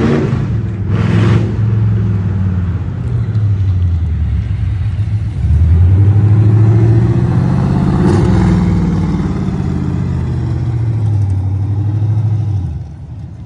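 1997 Camaro Z28's LT1 V8 running loud through open headers as the car drives slowly past and pulls in to park. The low exhaust note swells about five seconds in and drops away sharply near the end.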